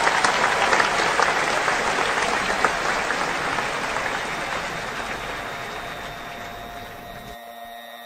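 Applause, a dense patter of many claps that fades gradually and cuts off suddenly near the end.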